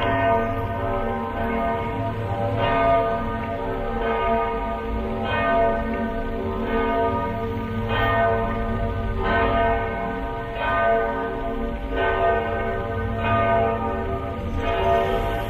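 Church bells ringing, a new strike about every second and a half, each note ringing on under the next.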